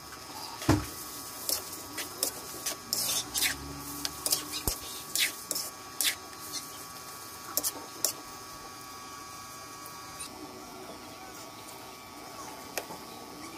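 A cooking utensil knocking and scraping against a metal wok while stirring noodles in broth, a string of sharp clicks over the first eight seconds, then only a few, over a steady background hum.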